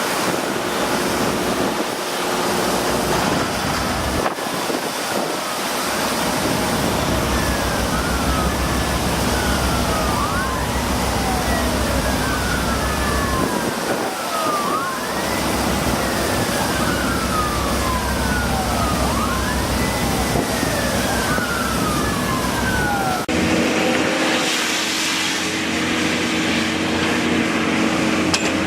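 An emergency vehicle siren wailing, its pitch sweeping up and down about every two and a half seconds over a steady rushing background noise. It cuts off abruptly about five seconds before the end.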